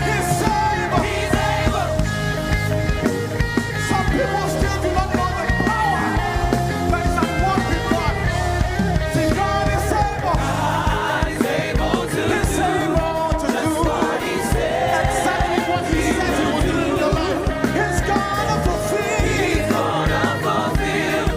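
Live worship band playing with singing over it, loud and steady without a break.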